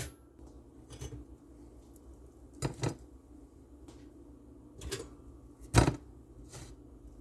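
Light clicks and knocks of hands handling toast and a two-slice toaster, about six scattered through, the loudest a sharp knock about six seconds in.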